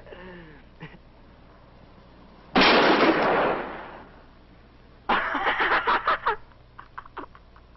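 A single handgun shot about two and a half seconds in, ringing out for a second or so. A couple of seconds later comes a quick run of sharp clattering cracks.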